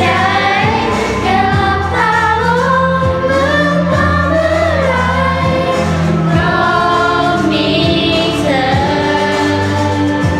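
A choir singing a Thai pop song in harmony, with long held low notes beneath the moving melody lines.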